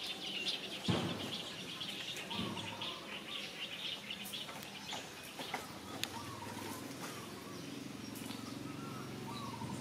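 Birds chirping and calling in a busy chorus, thickest in the first few seconds, with a short thump about a second in and a few light clicks.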